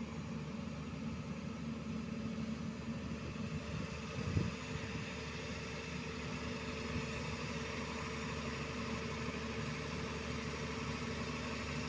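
Diesel engine of a JCB JS205 crawler excavator running steadily while the machine is driven down off a lowbed trailer, with one short heavy thump about four seconds in.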